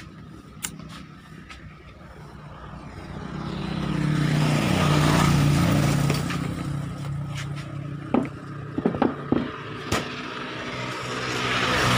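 A motor vehicle engine running, rising to a peak and then fading, with a second rise near the end. A few sharp clicks come about two-thirds of the way through.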